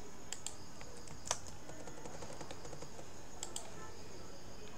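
A handful of separate computer keyboard keystrokes, the one about a second in louder than the rest, over a steady low hiss.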